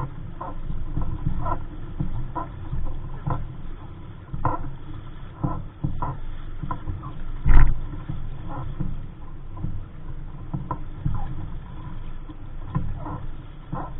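Wind buffeting the microphone aboard a small sailing dinghy, with water splashing and slapping against the hull in short irregular bursts and one louder thump about halfway through.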